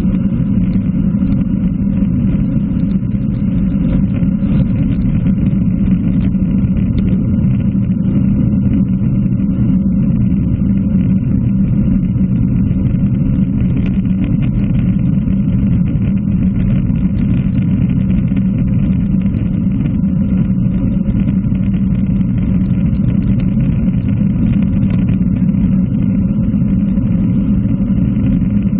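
Steady rush of wind buffeting a bike-mounted camera's microphone at about 40 km/h, deep and unbroken, with road-bike tyres rolling on wet tarmac.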